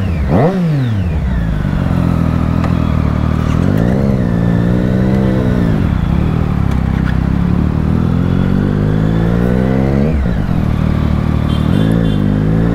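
Triumph Street Triple's three-cylinder engine revving and accelerating in traffic, its pitch climbing steadily as it pulls. About ten seconds in the pitch drops sharply and then climbs again, as at a gear change.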